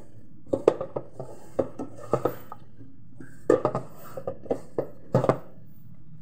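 A hand kneading a sticky dim sum mixture in a black metal pot, with irregular knocks and thuds of the hand and mixture against the pot, in small clusters every second or so.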